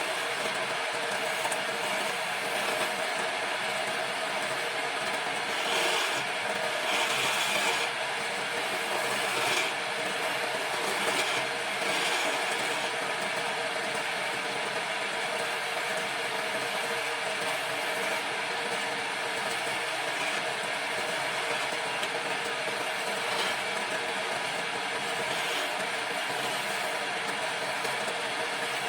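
Wood lathe running steadily while a turning tool cuts into the spinning wood. The cutting gets louder and brighter for a few seconds around 6 to 8 seconds in and again near 12 seconds.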